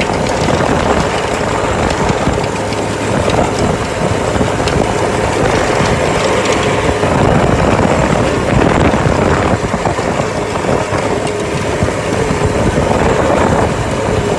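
Tractor engine running steadily while it pulls a manure spreader across a field.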